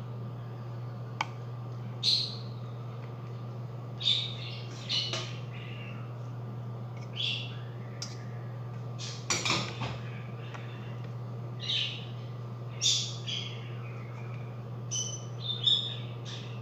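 Birds chirping in short high calls, roughly one a second, over a steady low hum. There is a sharp tap about a second in and a louder clatter near the middle.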